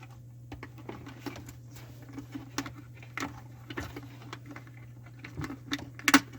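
Small irregular clicks and scrapes of a copper wire being wrapped by hand around a garbage disposal's terminal screw, with a sharper click about six seconds in. A steady low hum runs underneath.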